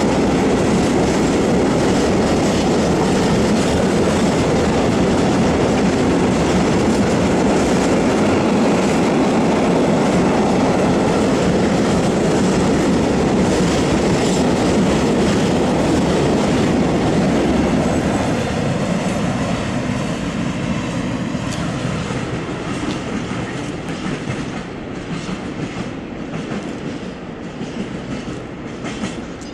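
Freight train of open coal wagons rolling past, its wheels rumbling and clacking over the rail joints. A little over halfway through the sound drops as the last wagons go by, and the train fades into the distance with fainter clacks.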